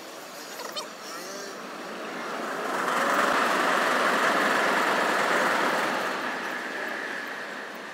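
A road vehicle driving past: its noise swells over a couple of seconds, holds for about three seconds, then fades away.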